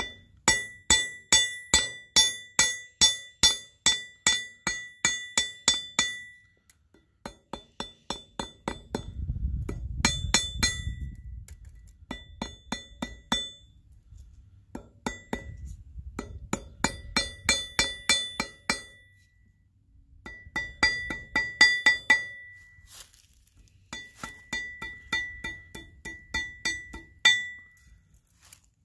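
Ball-peen hammer striking copper wire on a rusty steel block, hand-forging a cloak pin: runs of quick ringing metal-on-metal strikes, about three to four a second, broken by short pauses.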